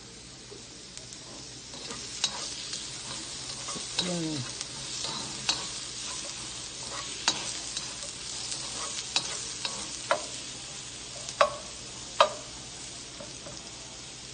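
Zucchini slices sizzling in a nonstick wok while being stirred with a slotted spatula, with scraping and several sharp knocks of the spatula against the pan.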